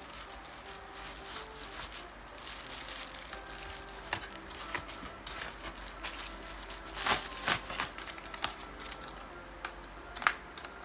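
Plastic packaging being handled, crinkling and rustling, with several sharper crackles, the loudest about 7 seconds in and again near the end.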